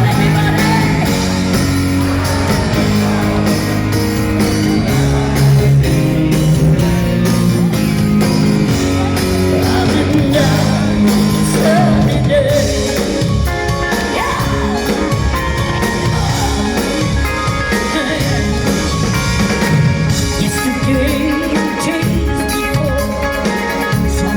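Live rock band playing with a singing voice over electric guitar, bass and drum kit, loud and continuous; the backing fills out about halfway through.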